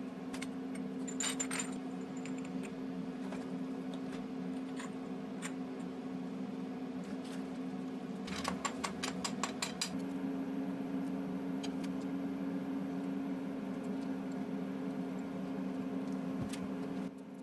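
Light metallic clicks and rattles as an aluminium nut adapter is handled and turned on a ballscrew nut, with a quick run of about ten clicks around the middle. A steady low hum sits underneath.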